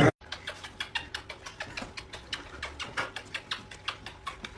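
Quick, uneven clicks and taps, about five a second, going on steadily.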